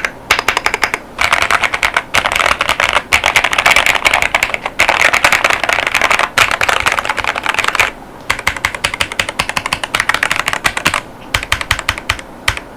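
Fast typing on a GravaStar Mercury K1 Lite mechanical keyboard with GamaKay Mars tactile 50gf switches and PBT Cherry-profile keycaps. The keystrokes come in rapid runs broken by brief pauses, and the typing stops just before the end.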